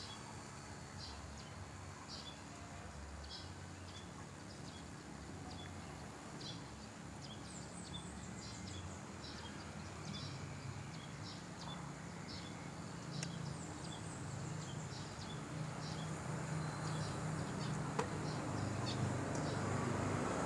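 Outdoor ambience with a high, short chirp repeating about once a second, from a small animal, over faint background noise; a low hum grows louder near the end.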